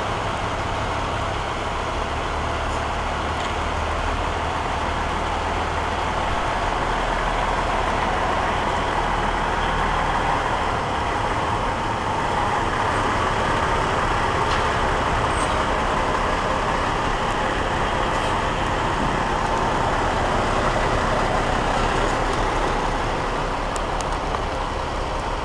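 Diesel semi-truck hauling a trailer of tower crane sections drives slowly past close by, its engine running steadily; the sound swells as it passes and eases off a little near the end.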